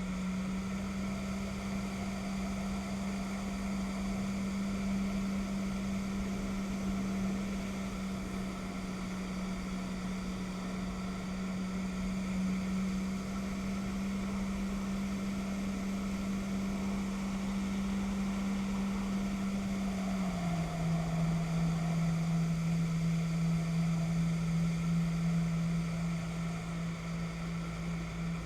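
Jet ski engine running at a steady cruising speed over water rush and wind, its steady drone dropping slightly in pitch about twenty seconds in.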